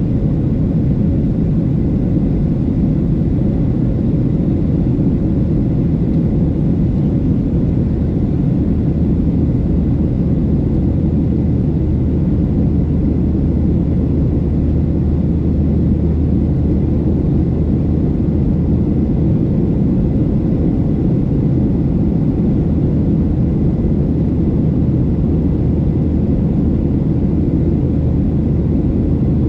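Steady cabin drone of a climbing Boeing 737-700: the CFM56-7B engines and rushing airflow heard from a seat behind the wing, with a low hum that grows stronger about nine seconds in.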